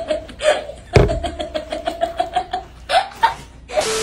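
A sharp thump about a second in, followed by a rapid run of ticks, each with a short tone. Near the end a TV-static hiss with a steady beep begins: a signal-loss glitch transition effect.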